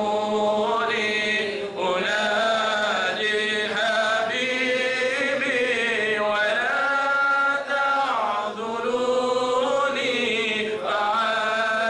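A man's voice singing a qasidah, an Islamic devotional song, into a microphone. The phrases are long and held, the pitch bends up and down, and there are a few brief breaks for breath.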